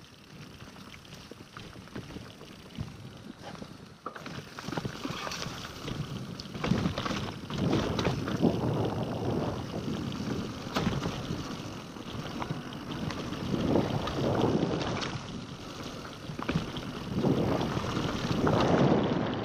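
Wind rushing over the action camera's microphone as a Scott Genius LT mountain bike rides a trail. The noise swells in surges of a few seconds, loudest in the second half, with many short clicks and rattles from the bike over rough ground.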